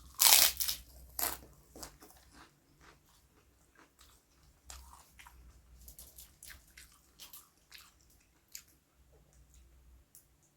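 A person biting into food and chewing with the mouth, a few loud crunches about a second long near the start, then softer, irregular chewing clicks.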